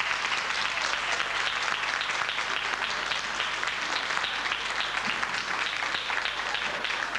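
Audience applauding: steady, sustained clapping from many hands.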